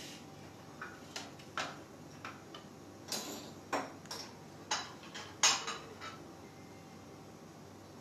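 Irregular clinks and taps of a metal utensil and a glass dish being handled on the kitchen counter, about a dozen in all, the loudest about five and a half seconds in.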